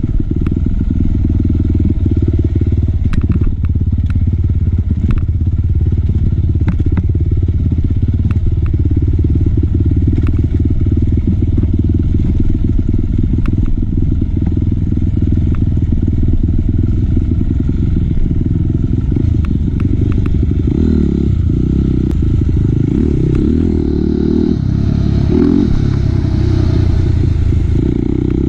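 Dirt bike's single-cylinder engine running at low trail speed, with scattered knocks and clatter as the bike rides over stones and roots. Near the end the engine note turns uneven and a hissing splash joins in as the wheels cross shallow water.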